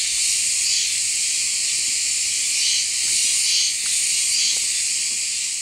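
A steady, high-pitched chorus of insects that swells slightly now and then, beginning to fade near the end.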